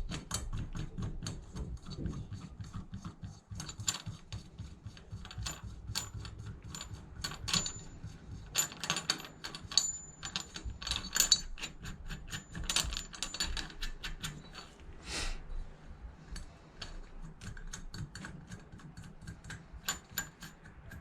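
Small metal engine parts and hand tools being handled during hand assembly of a small engine's valve train: irregular clicks and clinks with short metallic rings, busier in the middle.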